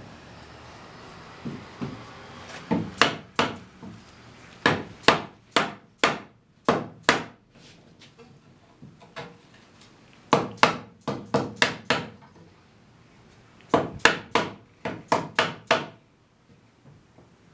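Sharp knocks of wooden brace spindles being driven into their holes in a Windsor chair. The blows come in quick runs of several strikes with pauses of a second or two between runs.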